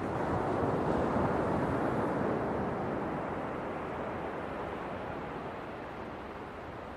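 Ocean surf washing on a shore: one wave's rush builds over the first couple of seconds, then slowly dies away.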